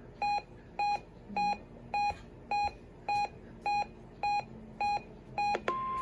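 Weather radio receiver beeping evenly, a short electronic beep about every 0.6 s, ten times during a Required Weekly Test. Near the end a steady 1050 Hz warning alarm tone begins.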